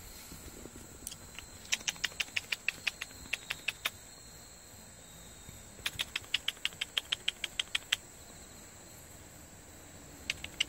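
A person making quick kissing squeaks with the lips ("jju-jju") to call cats to their food, about seven sharp squeaks a second. They come in runs of about two seconds with pauses between, and a third run starts near the end.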